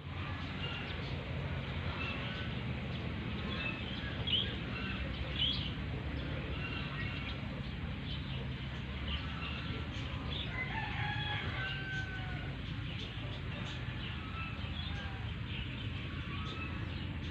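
A flock of chickens calling, many short overlapping clucks and calls with a rooster crowing among them, over a steady low rumble.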